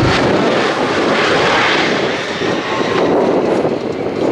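A-10 Thunderbolt II jet passing overhead, the steady rushing noise of its twin turbofan engines, dipping slightly about two seconds in.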